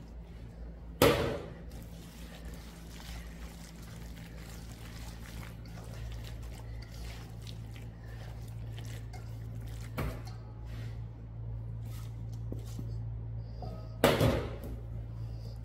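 Hands squishing and mixing chopped scallions into thick kimchi chili paste in a stainless steel bowl, over a steady low hum. A sharp metallic clank about a second in as a small steel bowl is set down on the steel counter, a lighter knock a few seconds later, and another loud clank near the end.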